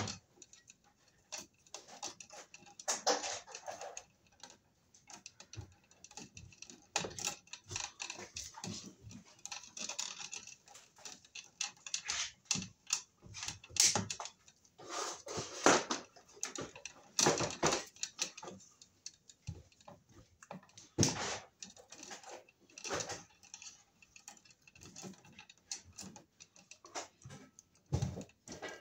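Irregular clicks, snips and rustles of electrical cable wires being handled and trimmed with diagonal side cutters at a plastic electrical box.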